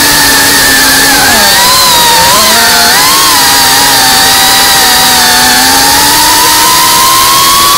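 FPV quadcopter's brushless motors whining loudly as it flies. The pitch dips and wavers with throttle changes one to three seconds in, then climbs slowly and holds steady.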